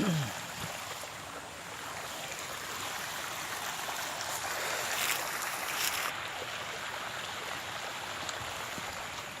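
Steady running water of a stream, with a couple of brief rustles about five and six seconds in.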